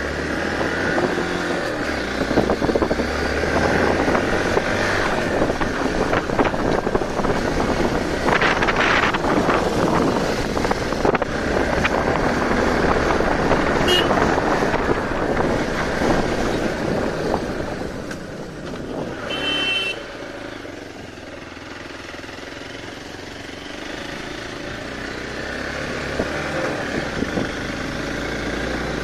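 Hero Xpulse 200 motorcycle's single-cylinder engine running under way, heard from the rider's seat with wind and road noise. It eases off about two-thirds through and slowly builds again towards the end.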